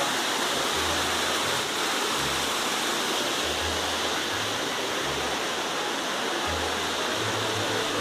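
Waterfall rushing steadily down over rocks.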